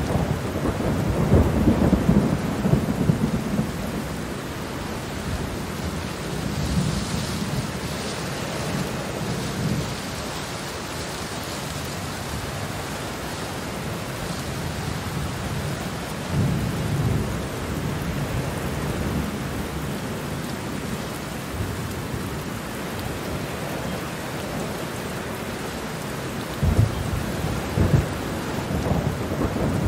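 Steady rain with low rolling thunder that swells and fades several times, loudest in the first few seconds and again near the end.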